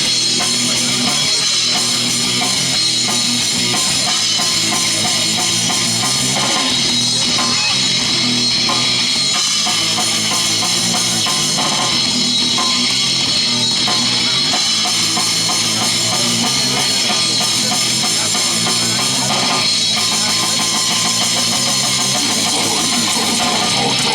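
Rock band playing loud, heavy rock: guitar over a drum kit, going steadily without a break.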